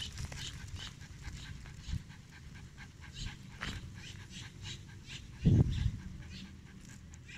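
A dog panting steadily, each breath a short hiss at about two to three a second. About five and a half seconds in comes a brief low thump that is the loudest sound here.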